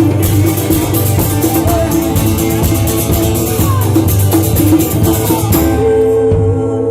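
Live rock band playing, with drum kit and guitar. Near the end the drums drop out and one long held note carries on.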